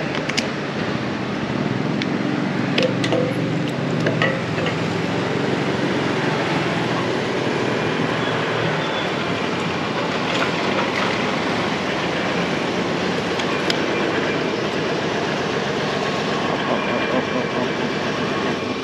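Motorbike on the move: steady engine and road noise, with a few brief clicks.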